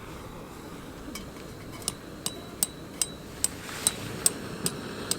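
Sharp metallic taps, each with a brief ringing tone, sparse at first and then settling into a steady beat of about two or three a second.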